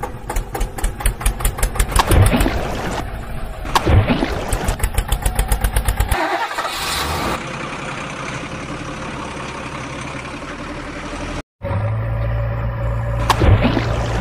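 Engine sound: cranking and catching with a fast, regular chugging beat, then running steadily, with a steady low engine hum after a brief cut about eleven seconds in. Falling swooshes pass over it about two, four and thirteen seconds in.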